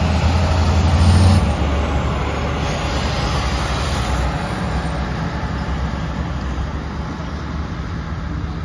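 Diesel engine of a hi-rail bucket truck running as it drives away along the rails towing a wood chipper. The low rumble is loudest in the first second or so, then fades steadily as the truck pulls away.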